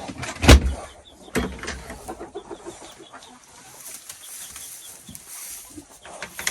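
Chickens clucking in a barn, with a heavy thump about half a second in and a second knock shortly after.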